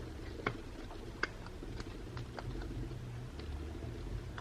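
Light, scattered clicks and taps from handling small parts of a smartphone's internals during reassembly, two of them sharper about half a second and a second and a quarter in, over a low steady hum.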